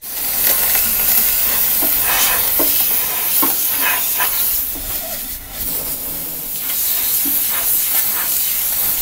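Compressed-air blow gun blasting into the steel fresh-air bucket behind the kick panel of a 1967–72 Chevy/GMC truck cab, blowing out the fine debris left after the big material was pulled out by hand. It makes a loud continuous hiss, with a short dip in the middle and small scattered ticks and rattles.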